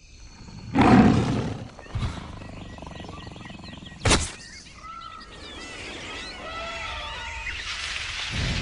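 Animal calls: a loud low call about a second in, a sharp knock about four seconds in, then chirping calls that glide up and down in pitch.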